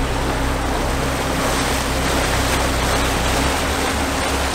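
A 69-foot Fairline motor yacht's engines running with propeller wash churning the water at the stern: a steady low engine hum under a constant rush of stirred-up water.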